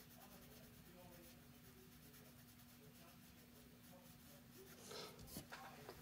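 Faint scratching of a colouring pencil shading on paper, over a faint steady hum, with a brief louder rustle about five seconds in.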